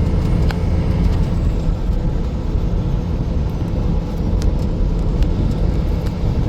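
Steady low rumble of road and engine noise from a vehicle driving on the highway, with a few faint ticks.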